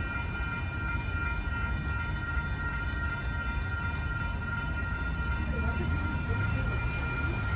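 Storm wind rumbling on the microphone, with a steady high-pitched whine of several held tones over it.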